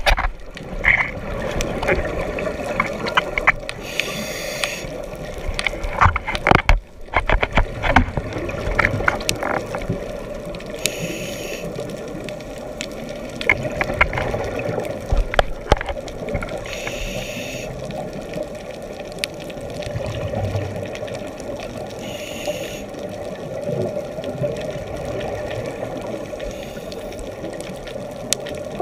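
Underwater sound through a GoPro's waterproof housing: a steady muffled rumble with scattered knocks and clicks, most of them in the first half. Over it, a scuba regulator's breathing: a burst of hiss and bubbling about every six seconds.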